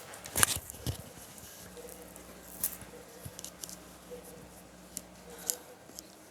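Quiet handling noises: a few sharp clicks and knocks, the loudest cluster about half a second in, then scattered single clicks.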